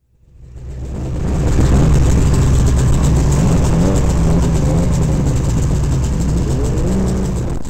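Ski-Doo snowmobile engine running under throttle, its pitch rising and falling several times, over a steady rush of wind and track noise. The sound fades up over the first second.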